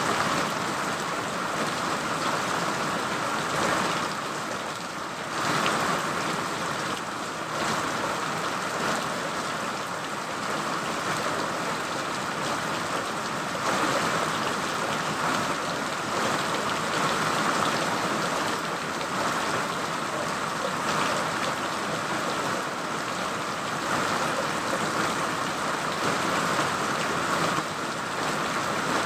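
Steady rain falling, a dense even hiss with small swells in intensity.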